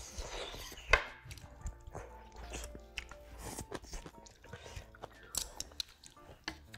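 Wooden chopsticks and a wooden spoon clicking and knocking against a metal pan and a kimchi bowl as food is picked up, with one loud sharp knock about a second in.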